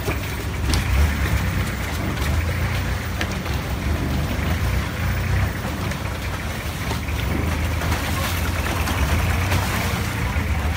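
Longtail boat engine running steadily under way, a constant low drone.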